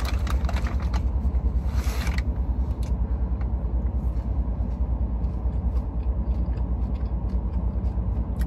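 Steady low rumble inside a car cabin, with brief rustling in the first two seconds and faint scattered clicks from chips being eaten.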